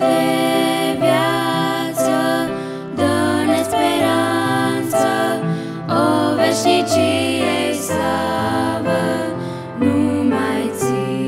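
Young female voices singing a Christian worship song in Romanian, accompanied by grand piano.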